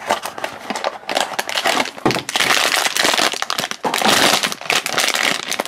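Cardboard blind box being torn open by hand with a few sharp tearing clicks, then the foil bag inside crinkled and ripped open, a dense crinkling from about two seconds in until near the end.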